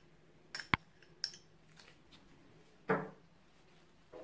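A few light clicks of a metal spoon against a small ceramic cup as ginger paste is scraped out into a glass bowl, then about three seconds in a louder tap that rings briefly, and a small tap near the end.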